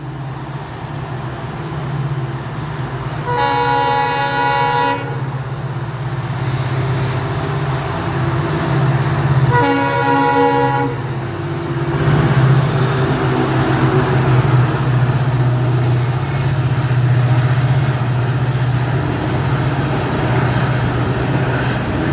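Twin WDG4D diesel locomotives humming steadily at the head of a freight train, sounding two horn blasts of about a second and a half each. After the second blast the rushing noise of the passing train grows and stays loud.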